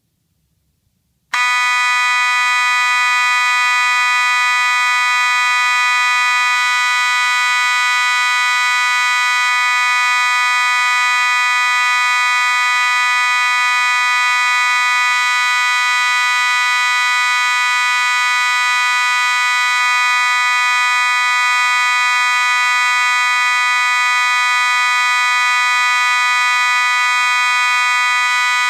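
1994 Federal Signal 450D Series C2 electromechanical fire alarm horn switching on about a second in and sounding continuously with a loud, steady, unbroken tone.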